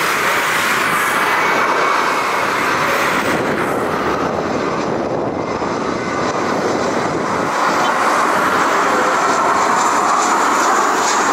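Jet engines of a Boeing 737-300 (CFM56 turbofans) running, a loud steady rushing noise that eases slightly about five seconds in and then builds again.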